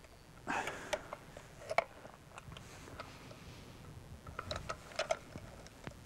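Light handling noises from a carp weigh sling and hand-held scale: rustling of the sling and a scatter of small clicks as it is hooked on and lifted to weigh the fish, in clusters about half a second in, near two seconds and around five seconds.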